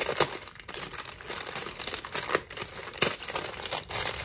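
Crinkly packaging rustling and crackling as it is handled, with three sharper crackles.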